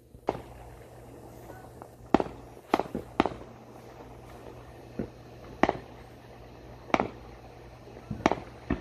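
Fireworks going off: about ten sharp bangs at irregular intervals, several in quick succession around the second and third seconds, over a low steady hum.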